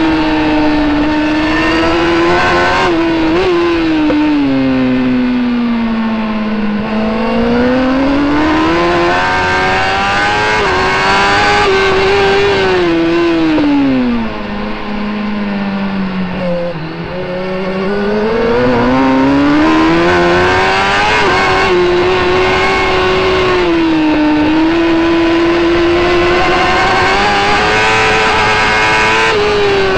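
Racing superbike engine recorded onboard, running at high revs. The pitch drops and climbs again several times as it comes off and back onto the throttle. It goes quieter for a few seconds in the middle while the revs fall to their lowest.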